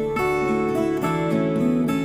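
Instrumental music led by acoustic guitar, picked notes and chords changing every fraction of a second.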